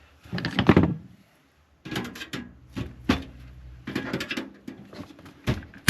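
A thin metal I/O shield being pressed and snapped into a computer case's rear opening: several bursts of clicking and scraping metal.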